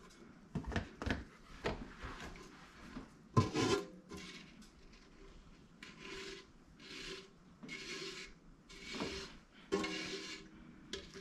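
Silicone spatula scraping the inside of a stainless steel stockpot, clearing out the last of a thick sugar candy mixture. There are a few sharp knocks in the first seconds, then a run of separate rasping strokes about one a second.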